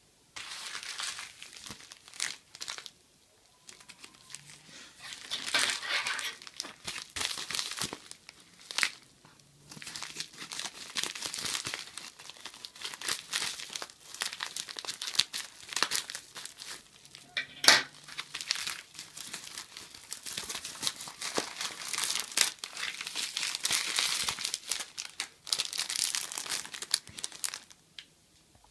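Parcel packaging crinkling and tearing as it is handled and opened by hand, in irregular bursts with short pauses, and one sharp click about two-thirds of the way through.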